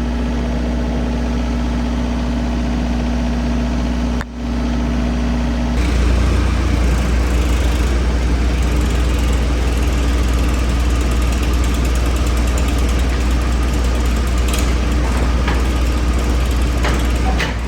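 Turbo diesel generator running steadily. About four seconds in, the sound drops out briefly; from about six seconds it runs louder, with a heavier low drone.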